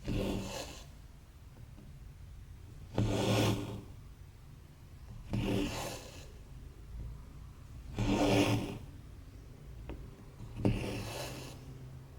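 Cross-stitch thread drawn through 14-count fabric, five rasping pulls about every two and a half seconds, each lasting under a second.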